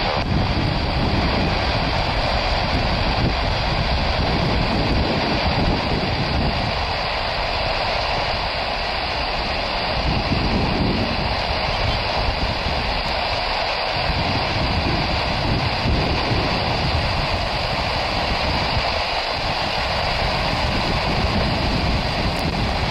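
Jet engines of a twin-engine widebody airliner at takeoff power: a loud, steady roar through the takeoff roll and rotation into the climb, with a deep rumble that swells and fades.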